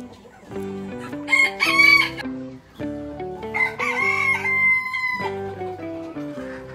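A rooster crowing twice; the second crow ends in a long held note. Background music plays underneath.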